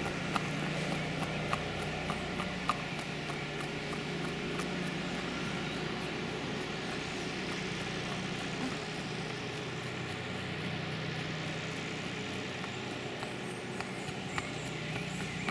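Hoofbeats of a Mangalarga Marchador horse on a paved surface in marcha batida, the breed's four-beat gait with the diagonal pairs emphasised, as light repeated clops over a steady low background hum.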